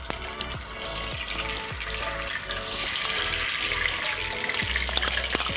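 Spoonfuls of ghee dropping into a hot wok and sizzling as they melt, the hiss growing louder about halfway through, over bright electronic background music.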